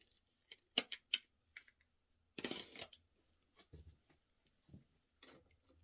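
Light clicks and taps of small makeup items being handled and set down, with a brief rustle about two and a half seconds in.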